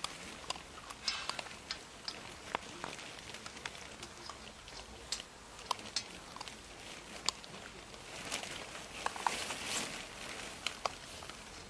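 Irish Setter puppies eating: irregular clicks, taps and smacking sounds of feeding, busiest near the end.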